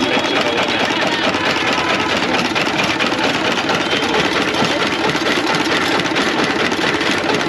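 Sugarcane juice crusher running, with a steady mechanical chatter as cane stalks are fed through its geared rollers to press out the juice.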